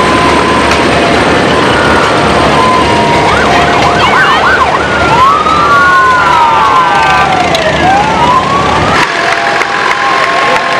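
A siren wails, wobbling quickly up and down in pitch and then sweeping slowly down and back up, over the steady running of Farmall tractor engines driving past. The low engine sound drops away near the end.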